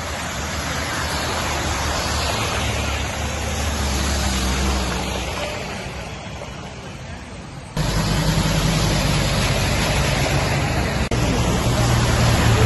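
Vehicles driving through a flooded road, their engines running and tyres splashing through the water, over a steady noise of flowing water. About eight seconds in the sound jumps abruptly louder, with a stronger engine hum.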